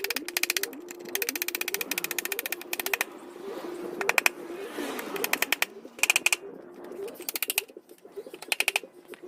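Hand ratchet clicking in quick bursts as bolts on a motorcycle front fork are worked loose, with a faint steady low tone under it that rises a little at regular intervals.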